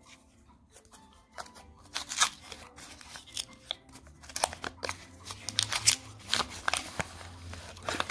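Paper wrapper of a roll of 2-euro coins being twisted, torn open and unrolled, crinkling and crackling in a quick run of sharp bursts that starts about a second and a half in.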